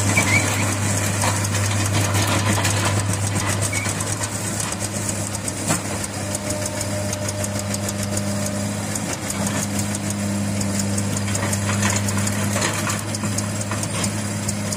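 Farm tractor's diesel engine running steadily with a low, even drone as it pulls a loaded trolley slowly through mud.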